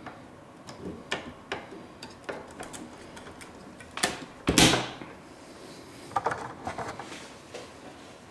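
A DDR4 memory module being lined up and pressed into a motherboard DIMM slot: several small clicks and knocks, then one loud snap about four and a half seconds in as the module seats under thumb pressure, followed by a few lighter clicks.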